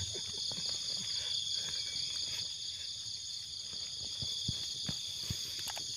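Steady, high-pitched trilling chorus of insects, with a few soft knocks and scrapes of a small knife digging into soft soil.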